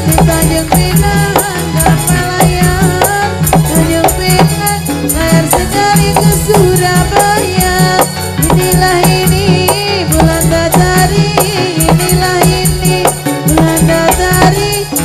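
Ndolalak dance music: a fast, steady percussion beat with dense rattling strokes under a wavering melody line, playing without a break.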